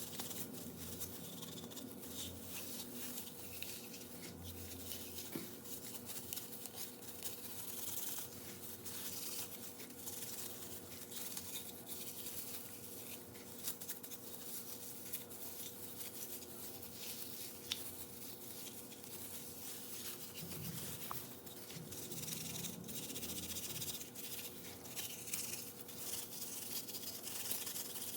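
Close-up brushing and scraping on a small object, a dense run of short scratchy strokes and clicks, over a faint steady hum.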